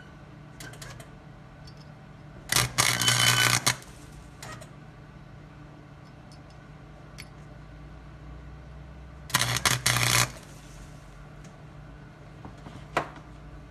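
Wire-feed welder arc crackling in two short bursts, each about a second long, as weld is built up into a pile on the end of a broken stud. A steady low hum runs underneath.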